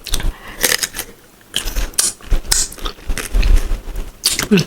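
Crisp crunches of bites into raw green mango and chewing, close to the microphone, in a run of sharp cracks with mouth sounds between them.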